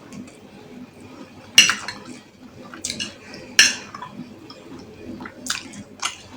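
Cutlery clinking against a bowl while eating rice and beans. There are about five sharp clinks at irregular intervals, the loudest about a second and a half in and again about three and a half seconds in.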